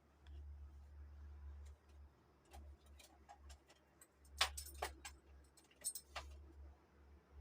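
A handful of sharp, irregular clicks and taps over a low steady hum, the loudest clicks bunched about halfway through.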